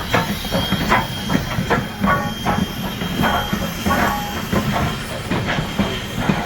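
A steam-hauled passenger train running, heard from aboard: a steady rumble and hiss with a run of sharp clacks, two or three a second.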